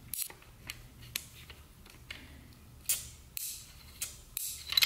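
Scattered light metallic clicks and scrapes as a magnet-tipped steel screwdriver probes inside an aluminium transmission valve-body bore, working a stuck valve loose.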